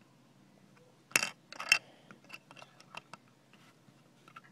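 Hard plastic LEGO pieces clicking and clattering as they are handled, with two louder clacks about a second in and then scattered light clicks.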